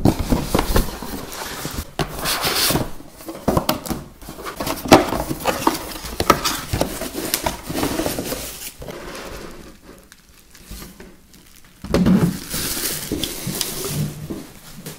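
Unboxing handling noise: a cardboard box being opened and bubble wrap rustling and crinkling as a clear plastic waterproof drone shell is unwrapped, with scattered knocks and clicks.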